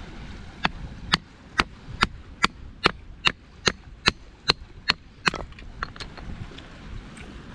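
Firewood being chopped: about a dozen quick, evenly spaced blows, a little over two a second, then a few lighter taps near the end.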